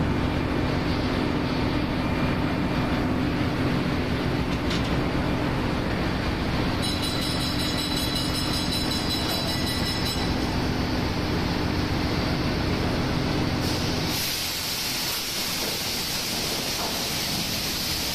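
Steady machinery din of a ship's engine room, with a constant low hum under it. About 14 seconds in, the low rumble drops away and a bright hiss takes over.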